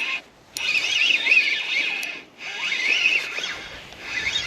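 Fishing reel being cranked in spells while a hooked pike is reeled in, its gears whirring with a wavering pitch, with two short pauses in the cranking.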